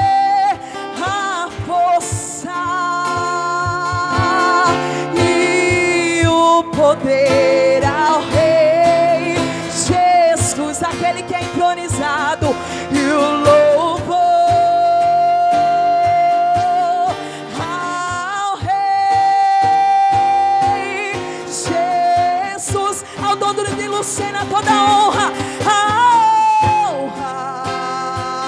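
Live gospel worship song played through a PA sound system: a lead singer holds long, wavering notes over an instrumental backing.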